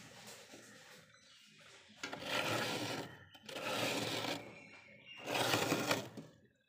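Thick frost inside a freezer being scraped off: three scraping strokes of about a second each, starting about two seconds in, after a quieter stretch of light rubbing.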